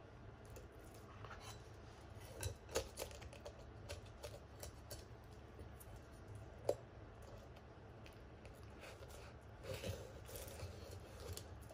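Faint handling sounds of a whole black sea bream and a deba knife on a wooden cutting board: a few light clicks and taps, the sharpest about two-thirds of the way through, as the fin is lifted and the blade is set at its base.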